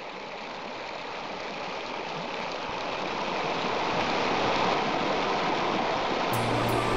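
Creek water rushing and splashing over rocks in a shallow riffle, a steady rushing noise that grows louder. Music comes in near the end.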